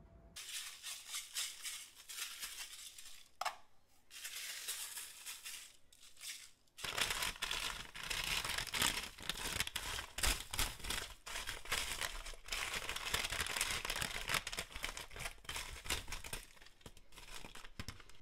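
Hands rolling sugar-coated cranberries around on a parchment-lined sheet pan: the parchment paper crinkles and rustles as the berries roll and tick against each other. There is a short pause about six and a half seconds in, and after it the rustling is busier and louder.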